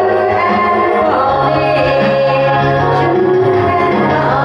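A woman singing through a handheld microphone over backing music, with a steady low bass note entering about a second and a half in.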